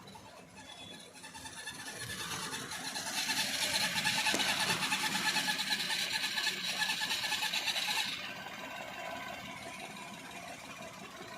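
Maruti Alto K10 with an abnormal clutch release bearing noise: a high-pitched squealing whir over the idling engine, the sign of a faulty release bearing. It builds up, holds loud for several seconds, then falls off suddenly about eight seconds in.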